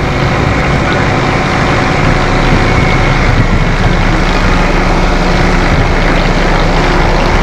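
Fire truck's diesel engine running steadily close by, a little louder after about two seconds.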